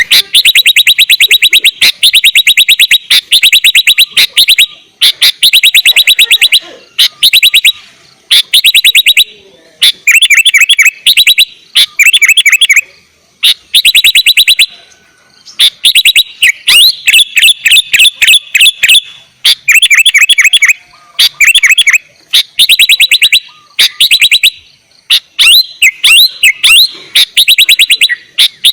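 Sooty-headed bulbul (kutilang) singing loudly in phrases of very fast repeated chirps, each phrase a second or two long with short pauses between. This is a masteran recording, used to prompt other bulbuls to answer.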